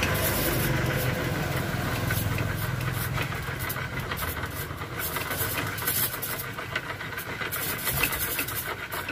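Coil-winding jig spinning as wire is wound into a motor coil: a rattling whir with many small clicks. A low hum sits under it for the first few seconds, then fades.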